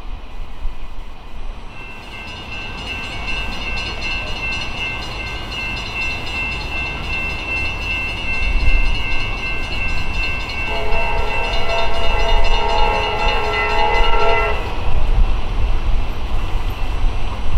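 Air horn of an approaching Norfolk Southern SD60M freight locomotive, sounding one long chord of several steady notes for about 13 seconds, with lower notes joining about ten seconds in before it cuts off. Beneath it the low rumble of the locomotive and train grows louder as it nears.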